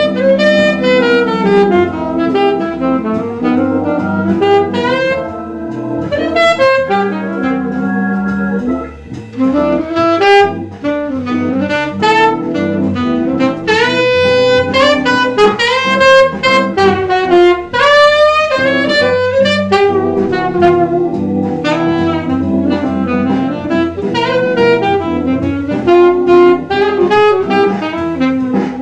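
Selmer alto saxophone playing a flowing jazz melody, with a sustained backing accompaniment underneath.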